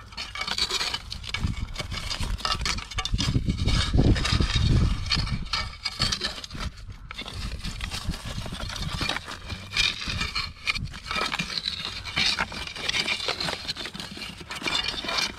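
Metal lobster hook scraping and clicking against rocks and gravel in a lobster's hole as it is worked in to coax the lobster out, a steady run of small scrapes and clicks. A stronger low rumble comes about three to five seconds in.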